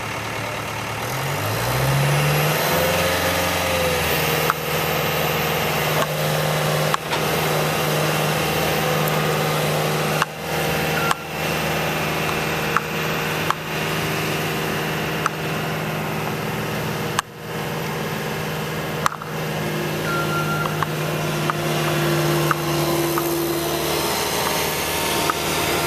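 Skid steer loader engine throttling up about a second in, then running steadily at high revs while the machine is worked, with scattered sharp knocks and a higher whine coming in around twenty seconds.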